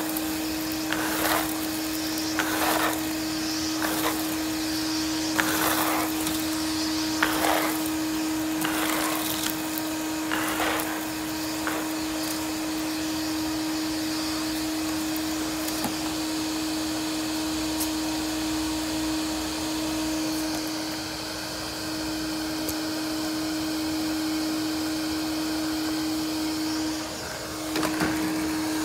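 Ridgid NXT wet/dry shop vacuum running with a steady motor whine, sucking up dry leaves: irregular short crackles and rattles as leaves go up the hose for the first ten seconds or so, then a steadier rush of air. The sound dips briefly near the end.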